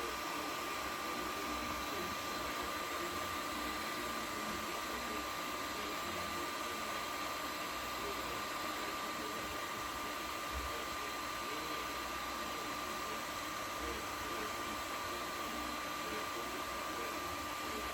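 Ortur Obsidian 3D printer running: a steady fan whir with a constant high whine.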